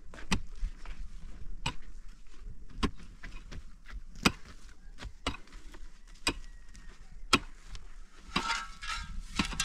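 A series of sharp knocks, about one a second, with a short burst of noisier sound near the end.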